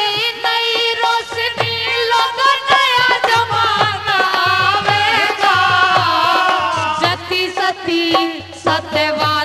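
Live Haryanvi folk-song accompaniment in a passage between sung lines: a wavering melody over steady hand-drum beats.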